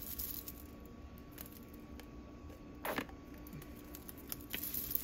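Faint scattered clicks and taps of a spoon against a can and pot, with one louder short wet sound about three seconds in, as condensed cream of chicken soup is spooned into the soup pot.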